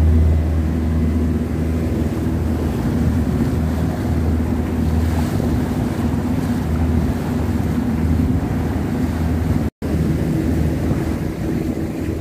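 Motor yacht's engine running steadily underway, a low drone, with water rushing along the hull and wind buffeting the microphone. The sound cuts out for an instant about ten seconds in.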